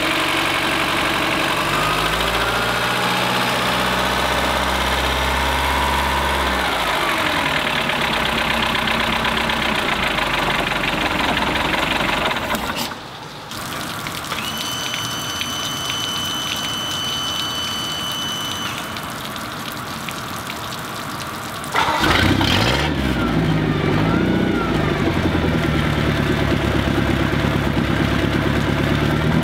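A Bayliner 192's MerCruiser 3.0-litre 135 hp sterndrive engine run out of the water on a garden-hose flush. It revs up and down in the first half. After a quieter stretch with water splashing and a steady high beep lasting about four seconds, it starts about 22 seconds in and settles to an idle.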